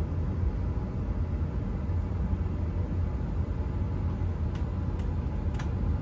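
Steady low rumble in a Boeing 747-8 flight simulator cockpit: the simulated engines at idle as the jet taxis onto the runway to line up. A few faint clicks come near the end.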